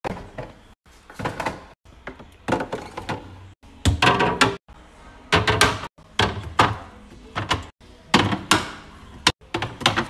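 Plastic and glass food containers being set down and slid onto fridge shelves: a quick run of clacks, knocks and thuds, broken several times by brief dropouts.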